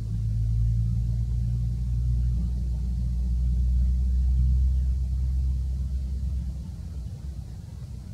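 A low motor rumble, like a vehicle engine running, swelling to its loudest about halfway and fading away near the end.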